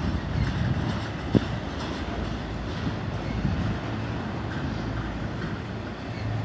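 Freight train's intermodal spine cars, loaded with truck trailers, rolling past on the rails with a steady rumble of wheels, and a single sharp knock about a second and a half in.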